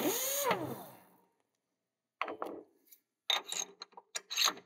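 Metal tooling being handled at the mill's spindle as the drill is taken out: scattered clicks and short clattering rattles in the second half. In the first second there is a brief tone that rises, then falls.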